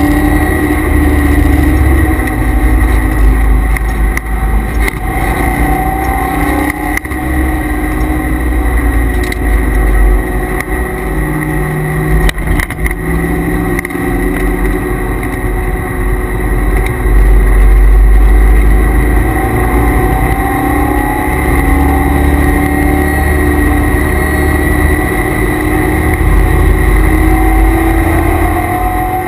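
Chevrolet Corvette C5 Z06's LS6 V8 under hard track driving, heard from inside the cabin, rising and falling in pitch with throttle and gear changes. Under it runs a steady whine from the car's added transmission and differential coolers.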